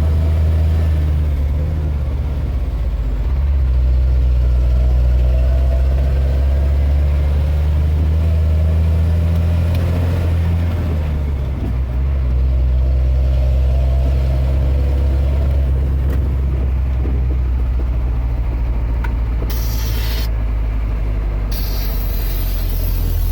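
Scania G 380 truck's 9-litre five-cylinder diesel engine running under load with a deep, steady rumble, its pitch shifting slightly as the throttle changes. Short hissing near the end.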